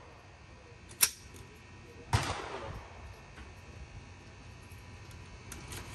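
Two gunshots on a shooting range. A short sharp crack comes about a second in, then a louder report about two seconds in that trails off in an echo.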